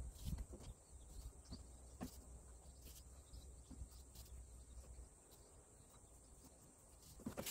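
Near silence: faint outdoor ambience with a few soft, scattered clicks and a low rumble that fades out about five seconds in.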